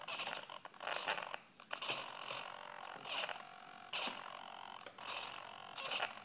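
Micro servo whirring in short bursts, about once a second, as it drives the foam flying wing's elevon up and down through its pushrod.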